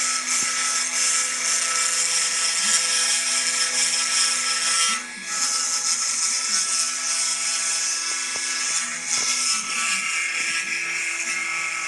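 Mini desktop CNC engraving machine cutting wood: the spindle motor runs with a steady high whine and hiss as the engraving bit carves, while the stepper motors hum at low pitches that shift as the axes move. The sound briefly dips about five seconds in.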